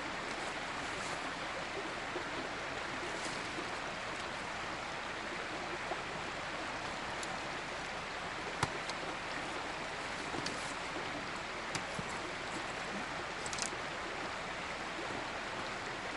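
Steady rush of a flowing stream, with a few faint clicks and knocks scattered through it.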